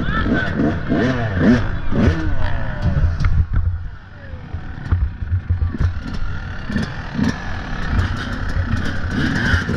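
Dirt bike engine revving up and down repeatedly as the throttle is worked over rough off-road terrain, with rattling and clatter. It drops off briefly about four seconds in, then picks up again.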